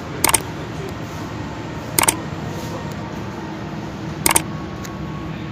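Camera shutter clicking three times, each a quick double click, about two seconds apart, over a steady low hum.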